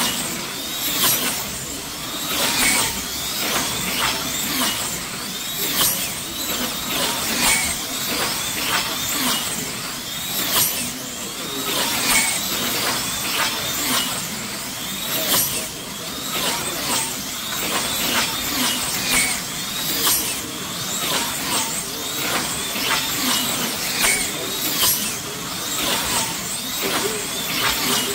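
Electric slot cars racing past on a multi-lane banked track: the high whine of their small motors and the hiss of the pickups in the slots swell and fall away as each car goes by, about one pass every second or two, their pitch gliding as they pass.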